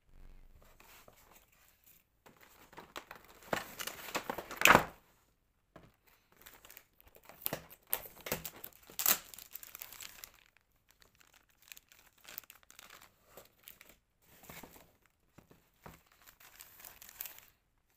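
Plastic bags and cardboard packaging crinkling and rustling as they are handled, in irregular bursts. The loudest come about a quarter of the way in and again about halfway through.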